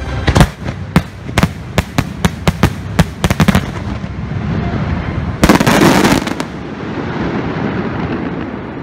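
Fireworks going off: a quick string of sharp bangs for the first few seconds, then a loud, dense crackling blast about five and a half seconds in, trailing off into a rushing noise.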